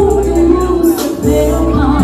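A woman singing into a microphone, her held and gliding sung notes carried over instrumental accompaniment.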